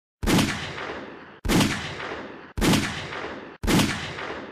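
Four .380 ACP pistol shots from a Taurus TCP 738 micro-compact pistol firing Federal HST hollowpoints, about a second apart, each ringing out briefly before the next shot cuts in.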